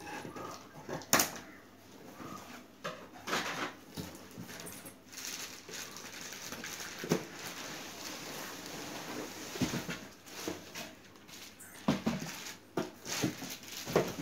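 Cardboard shipping box being opened by hand and a plastic-wrapped suitcase lifted out: rustling and scraping of cardboard flaps and plastic, with scattered knocks, the sharpest about a second in.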